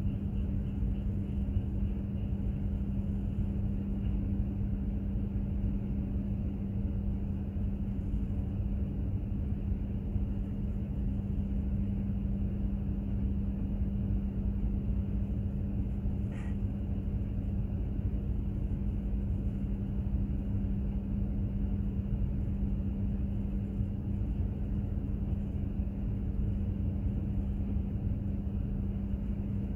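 Container ship's engine and machinery rumbling steadily under way, with a constant low hum. One faint tick a little past halfway.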